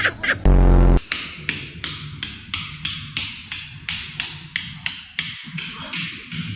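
A short, loud low buzz about half a second in, then a steady run of sharp ticks or taps, about three a second.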